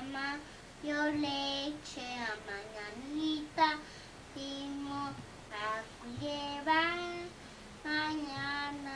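A toddler girl singing a wordless tune in a string of short held notes, with brief pauses between phrases.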